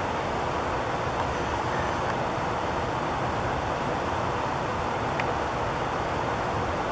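Steady, even rushing background noise with no change in level, and a faint click about two seconds in and another about five seconds in.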